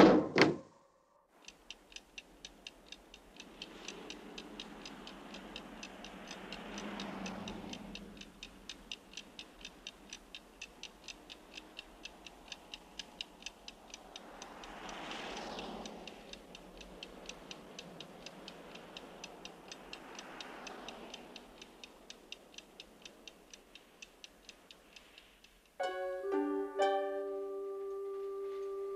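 Steady clock ticking, about three ticks a second, under faint slow swells of sound. About 26 s in, music with plucked notes starts.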